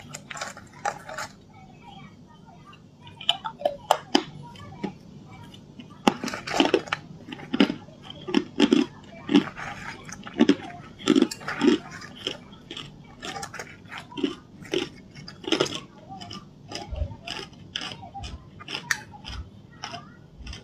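Close-miked biting and chewing of hard ice chunks dusted with green powder: irregular sharp cracks and crunches as the ice breaks between the teeth, coming faster after the first few seconds.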